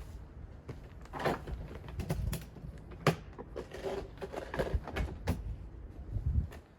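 Irregular knocks and clicks of things being handled, the sharpest about three seconds in, with a low thud near the end.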